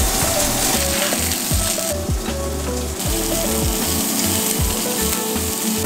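Salmon fillets sizzling in hot oil in a cast iron pan, searing with a steady frying hiss.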